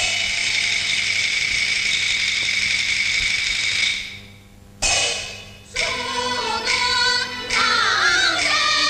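Henan quju opera music: a long held note for about four seconds, a short lull, one sharp percussion stroke, then a sung line with bending pitch begins over the accompaniment.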